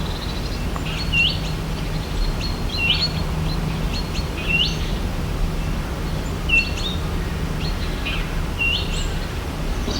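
A bird calling, one short note that sweeps sharply upward, repeated about every two seconds, over a steady low background hum.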